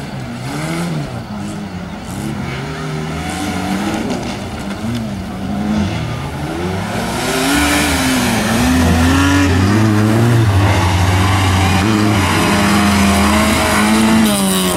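Several autocross race cars driving hard on a dirt track, their engines revving up and down through the gears with several pitches at once. The sound grows louder about halfway through as a car slides past close by on the loose dirt.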